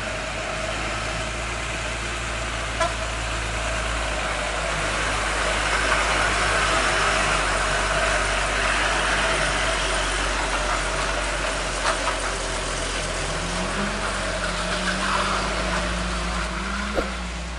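Heavy box truck's diesel engine running under load as it climbs a steep hairpin, getting louder through the middle as the truck passes close, over a steady wet hiss.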